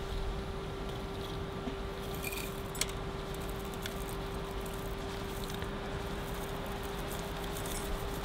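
Dry loose-leaf tea shaken from a glass jar into a stainless-steel infuser basket: light pattering and rustling of the leaves, with a few sharp clicks of glass or metal, one a little under 3 seconds in. A steady hum runs underneath.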